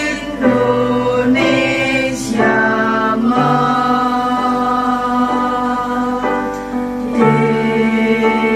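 Mixed student choir singing a slow song in long held chords, the chord changing about once a second.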